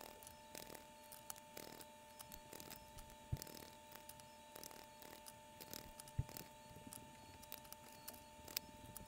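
Faint clicks and flicks of a deck of oracle cards being shuffled and dealt onto a wooden tray, with a couple of sharper taps a little over three and about six seconds in, over a steady faint hum.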